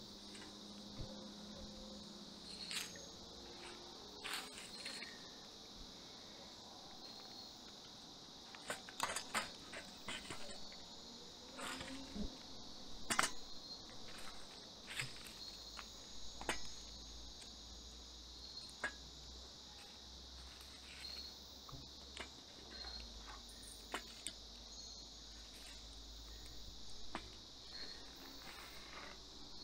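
Steady chorus of night insects with a high, even chirring, over scattered sharp clicks and clinks as a metal grill grate and pieces of firewood are handled at a small firebox, busiest about ten to thirteen seconds in.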